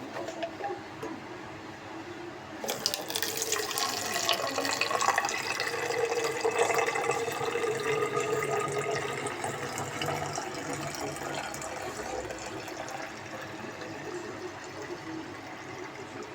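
Water running from a tap, turned on abruptly about three seconds in, strongest for several seconds and then easing to a steadier, softer flow.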